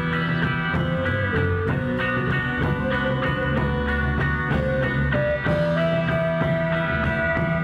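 Rock music with electric guitar and drum kit, a held lead guitar line stepping up to a higher note about five and a half seconds in.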